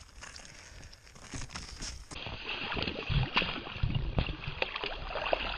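Water sloshing and splashing in an ice-fishing hole as a hand works in it, with small irregular slaps and knocks. Faint at first, with the splashing starting about two seconds in.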